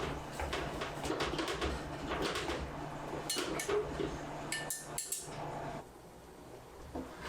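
Kitchen work: dishes and utensils knocking and clinking in quick succession, over a steady low hum that stops about six seconds in.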